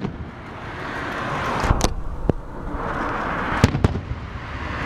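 Aerial fireworks bursting: several sharp bangs, two pairs in quick succession, over a steady hiss of noise.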